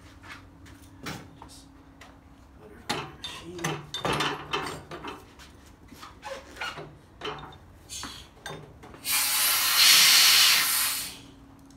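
A wheel and tire knocking and rubbing as it is set onto a tire changer's turntable, then a loud air hiss of about two seconds near the end as the changer's pneumatic clamps are worked to grab the rim.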